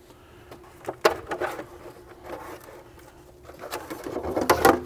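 Cordless impact driver running on the hex bolts of a plastic engine cover, a steady motor whine with rattling clicks, followed near the end by a clatter of hard plastic as the cover is lifted off.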